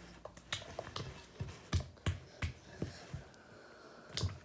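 Spoon clicking and tapping against a bowl while stirring slime: a string of short, uneven clicks, two or three a second.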